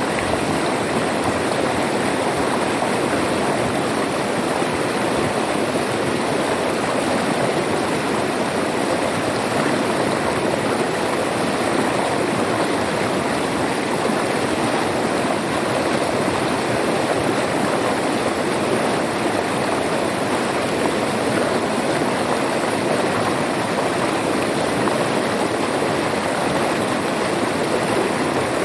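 River water flowing over rocks in a steady rush, with no breaks or changes.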